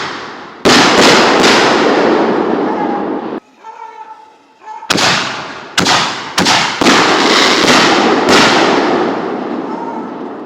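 Fireworks going off in a rapid string of loud bangs, each one trailing off slowly. There are about nine bangs in two clusters, with a brief lull about three and a half seconds in.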